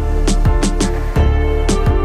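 Background music with a steady beat: held pitched notes over regular drum hits.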